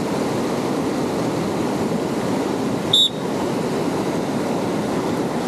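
Fast river current rushing steadily through rapids. About three seconds in there is one brief high-pitched chirp.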